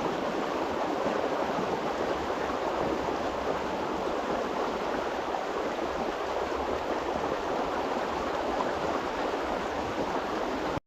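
Stream water rushing steadily, an even noise with no breaks.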